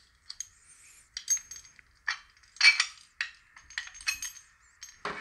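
Reese Towpower trailer coupler lock being unlocked with its key and taken off: a string of light metal clicks and clinks, several ringing briefly.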